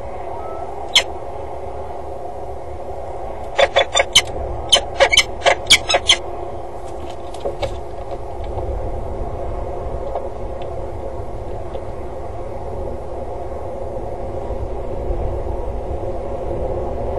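Peregrine falcon calling: one short harsh call about a second in, then a rapid series of about a dozen sharp calls at some four a second, and a few faint ones after, over a steady low rumble.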